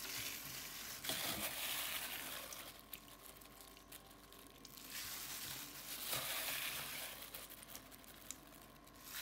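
Crinkling of a thin plastic disposable glove and soft handling of wet, salted fish pieces and onion being scooped by hand from a steel pot into a steel pan. It comes in two spells with a quieter gap in the middle.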